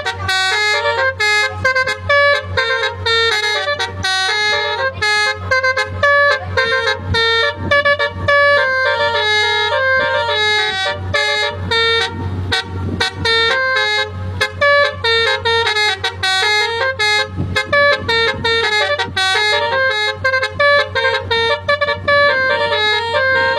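Basuri telolet bus horn playing a fast melody of quickly changing, bright horn tones without a break, over a steady low hum.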